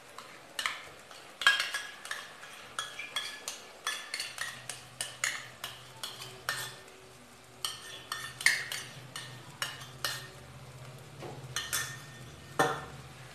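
A metal spoon clinking and scraping against a small steel bowl as cream is scooped out of it into a pan: many sharp, irregular clinks. A faint low steady hum runs underneath from about four seconds in.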